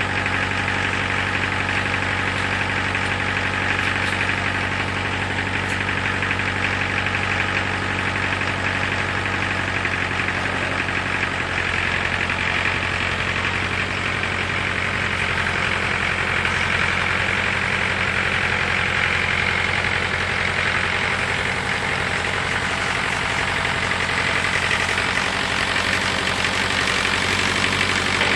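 Tractor engine running steadily, its note shifting slightly about twelve seconds in.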